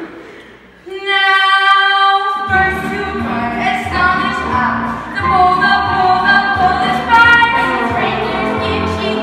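A musical-theatre song performed live on stage: singing, with a woman's voice most prominent. One note is held from about a second in, and a fuller accompaniment with a regular beat comes in about two and a half seconds in.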